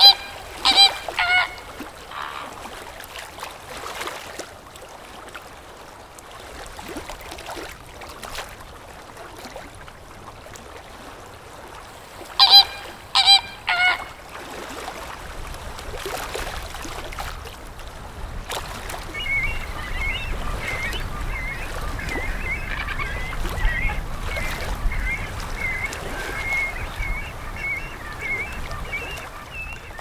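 Flamingo flock calling: two groups of about three loud, short honking calls, one just after the start and one about 12 seconds in, then from about 19 seconds a continuous chatter of many higher calls over a low rumble.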